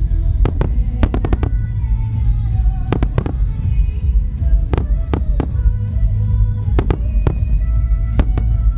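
Starmine fireworks shells bursting in irregular clusters of sharp bangs, with a quick volley of several about a second in, over a heavy low rumble. Loudspeaker music with sustained notes accompanies the barrage.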